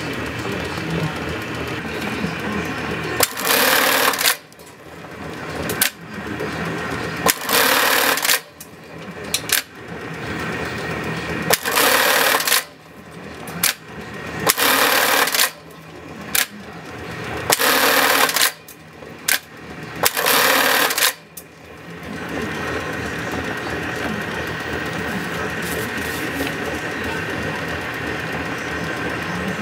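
Juki LK-1852 industrial bartacking machine sewing bartacks: six loud stitching cycles of about a second each, with short clicks between them, over the steady hum of its running motor.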